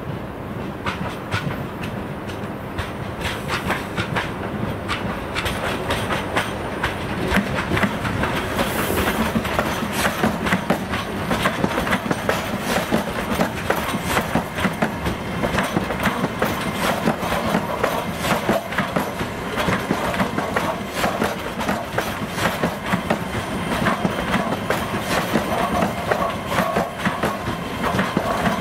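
EG2Tv 'Ivolga' electric multiple unit pulling out and passing close by. Its wheels click over rail joints, the clicks coming faster as it gathers speed, over a steady rumble of the train's running gear.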